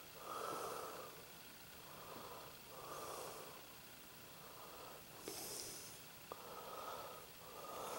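Faint, slow breathing close to the microphone: a soft breath every two to three seconds, with a brief hiss and a light click about five seconds in.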